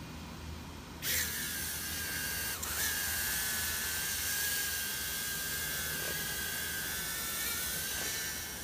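Holy Stone HS210 mini quadcopter's motors and propellers spinning up suddenly about a second in as it takes off, then a steady high-pitched whine with a buzzing hiss while it flies. The pitch dips and recovers briefly a little later.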